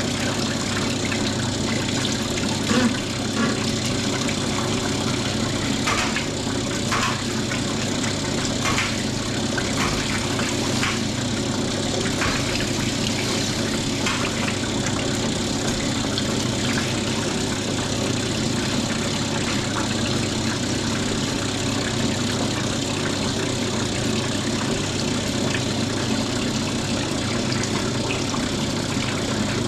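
Cylinder honing machine running steadily, with honing oil flowing over the work, for the finishing pass on finer stones in a BSA motorcycle cylinder bore. A few short metallic clicks and knocks come in the first half.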